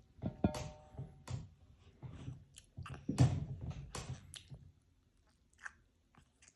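A toddler chewing orange segments: irregular wet smacks and clicks of the mouth, loudest a little past three seconds in. Brief musical tones sound in the first second.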